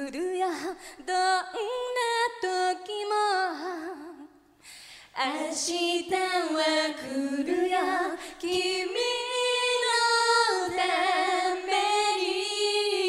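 Women singing a Japanese pop song live with little or no instrumental backing; the singing breaks off briefly about four seconds in, then the voices come back together on long held notes.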